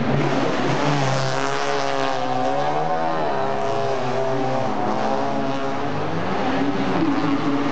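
Race car engines passing on a circuit, several at once, their pitch rising and falling as the drivers rev and shift.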